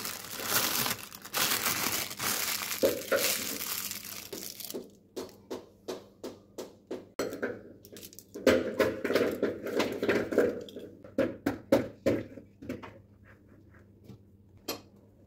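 Plastic piping bag crinkling and rustling as it is handled and filled with batter. Dense rustling for the first few seconds, then a run of short crackles and clicks, a second stretch of rustling about halfway through, and fewer sounds near the end.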